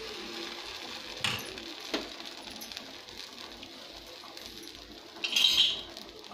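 A metal ladle clinks twice as it is set down, about one and two seconds in. Near the end comes a short, louder hiss.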